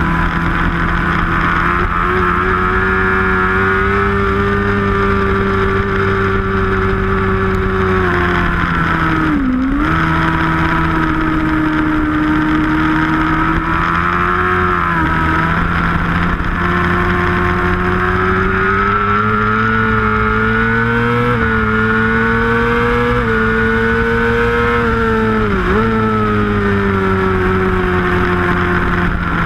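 Onboard sound of a 750 superbike racing motorcycle's engine at high revs, rising and falling with the throttle through corners, with its pitch dipping sharply twice, about ten seconds in and again near the end, under a rush of wind.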